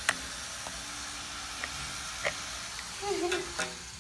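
Scattered light clicks and taps of a plastic Play-Doh toy set being handled, over a steady background hiss, with a brief faint voice near the end.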